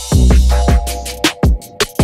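Electronic background music with a deep bass and a drum beat.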